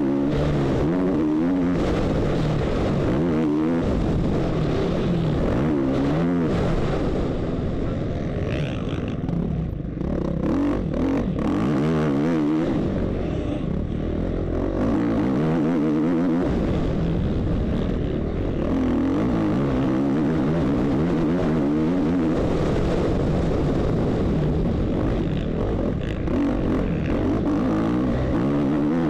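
450cc four-stroke motocross bike engine, heard close from an on-board camera, revving up and dropping back over and over as the bike races around the track.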